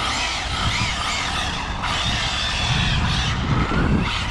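Arrma Felony 6S electric RC car being driven, its brushless motor and drivetrain whining up and down in pitch with the throttle, on a motor-to-spur gear mesh just loosened after it had gone dead tight. Low wind-like rumble underneath.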